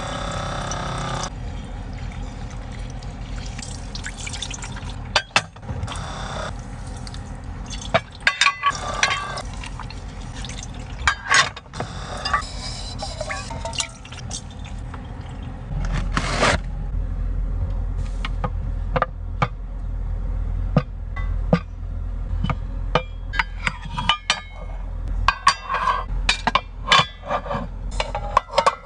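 Liquid being poured, with many light clinks and knocks of handled objects over a steady background. A low rumble joins about halfway through.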